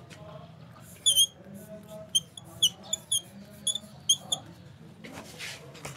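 Chalk writing on a blackboard, giving a series of short, high squeaks, about eight in a few seconds.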